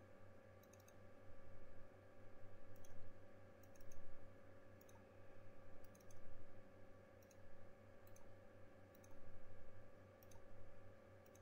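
Computer mouse clicks at irregular intervals, often two or three in quick succession, over a steady low electrical hum.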